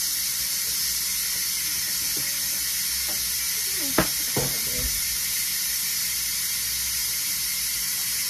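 Pressure cooker of lima beans venting steam, a steady hiss as the pressure is let off after cooking. A brief knock about four seconds in, with a couple of lighter clatters just after.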